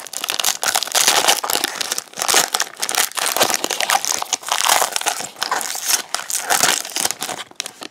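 Foil trading-card booster pack being torn open and crinkled by gloved hands: a dense run of crackling rustles that dies down near the end.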